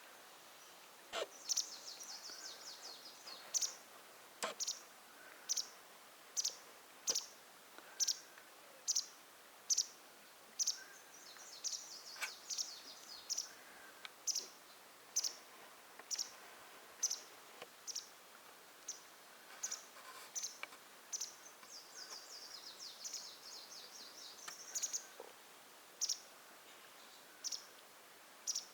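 A small songbird calling over and over with short, high chirps about once a second, broken now and then by longer chattering trills.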